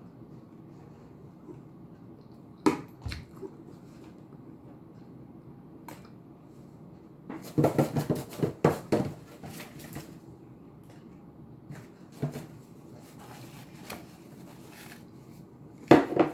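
Eating sounds picked up close to the microphone: scattered sharp clicks, with a quick run of crackling clicks a little past the middle.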